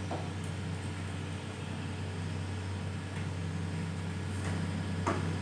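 Steady low hum with a few light clicks of plastic parts being handled and fitted into an air conditioner's indoor unit, the sharpest click about five seconds in.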